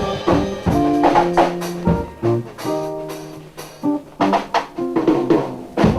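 Instrumental music: held chords over drum hits.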